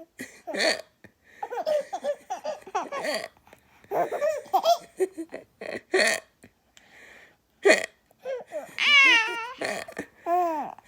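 A young child laughing in high-pitched bursts, set off by sharp hiccups that come every two to three seconds. A long squealing laugh follows near the end.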